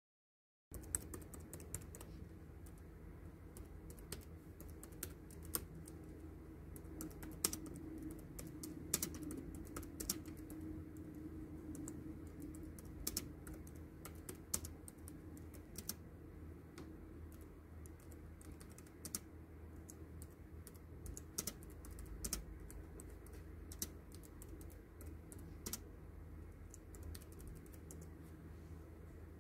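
Typing on a Logitech K380 keyboard: irregular soft clicks of its round plastic keys, thickest in the first half and sparser later, over a steady low hum.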